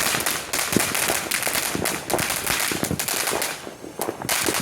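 Consumer fireworks going off in a rapid, crackling string of pops like machine-gun fire, easing off briefly about three and a half seconds in before the popping picks up again.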